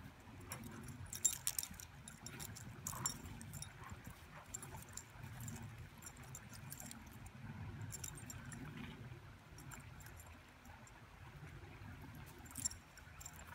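Two dogs, a golden retriever and a Groenendael, play-wrestling in snow: faint metallic jingling from their collar and harness hardware and scuffling in the snow, with the sharpest jingles about a second in and near the end.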